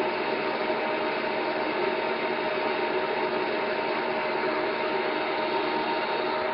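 WEN PL1337 13-inch benchtop thickness planer running with no board fed, its 15-amp motor and spiral cutterhead giving a steady whine with several held tones over a noisy rush.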